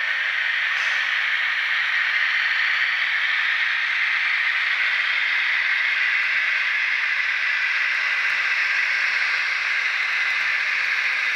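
Diesel railcar engine sound from an ESU LokSound V3.5 decoder in a KATO HO-scale KiHa 82 model, played through its small onboard speaker. It is a steady, hissy rasp with almost no bass.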